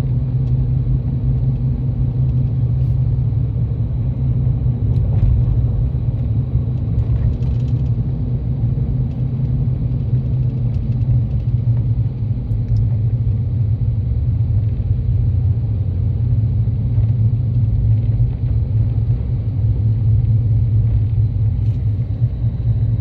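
Steady low rumble of a vehicle driving, without change in pace.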